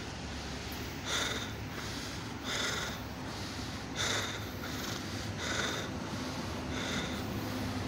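VL80K electric freight locomotive approaching: a low steady hum that grows slightly louder toward the end. Over it, a short, sharp hissing sound repeats about every one and a half seconds.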